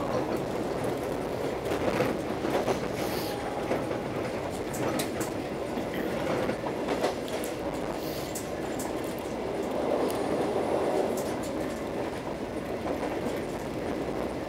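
Argo Parahyangan passenger train running at speed, heard from inside the carriage: a steady rumble of wheels on rail with scattered, irregular clicks and knocks.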